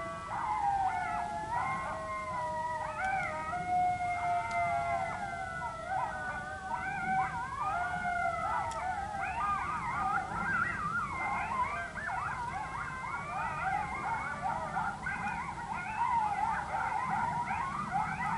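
Coyote pack howl-and-yip chorus played through a Primos Dogg Catcher electronic predator call: several long, gliding howls overlap at first, then give way about halfway through to a dense, frantic mix of rapid yips and warbling howls.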